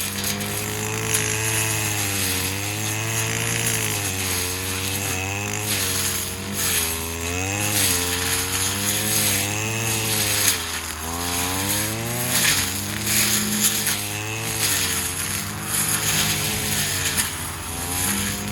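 Stihl FS250 brush cutter's two-stroke engine running at high speed while cutting elephant grass. Its pitch dips and recovers every second or two as the cutting head bites into the stems, with a hissing swish on each stroke.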